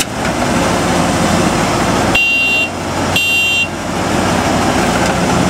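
Diesel engines of a combine harvester and a bogged-down tractor running hard as the combine strains to pull the tractor free of sticky mud; it does not budge. Two short, high beeps sound about a second apart, around two and three seconds in.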